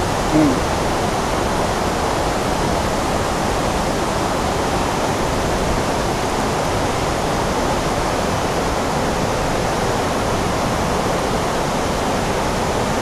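Steady, even rushing of running water.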